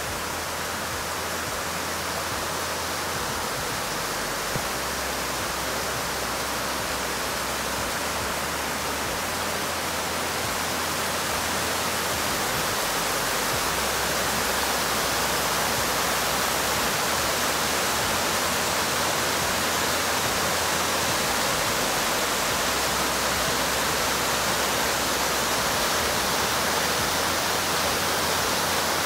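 Waterfall cascading over mossy rock ledges into a creek: a steady, even rush of falling water, growing a little louder about halfway through.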